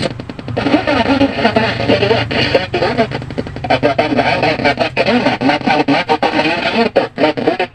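Guitar music playing from the SUYLI 4-band AM/FM radio's speaker, breaking up with many brief dropouts. The sound is distorted: the fault the radio is being repaired for.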